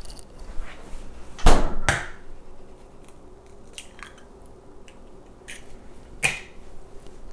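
An egg being cracked over a stainless steel pan of burger mixture: two sharp knocks about a second and a half in, then quieter clicks and a further knock as the shell is pulled apart and the egg goes in.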